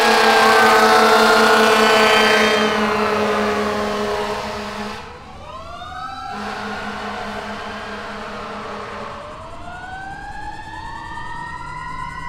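Fire engine's siren wailing, its pitch falling away over the first few seconds and climbing again near the end. A low steady horn tone sounds under it for the first five seconds and again briefly after. The whole sound grows fainter about five seconds in as the truck moves off.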